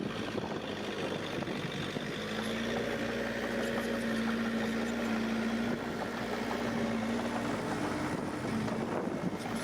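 Heavy diesel engine of earthmoving machinery running steadily, a constant hum with a held tone that shifts slightly in pitch.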